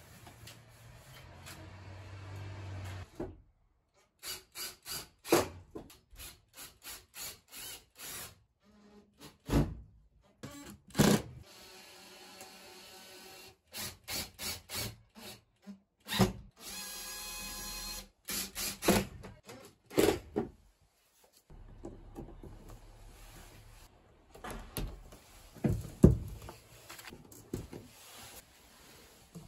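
A cordless power driver driving screws into a wooden wall in short bursts, with one longer steady run in the middle.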